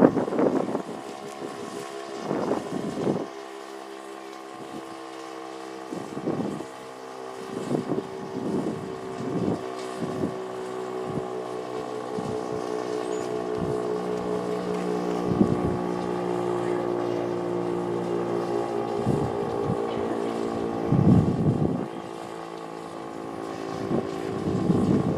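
Federal Signal STH-10 electromechanical fire siren sounding at a steady pitch, its tone swelling and fading in loudness every few seconds.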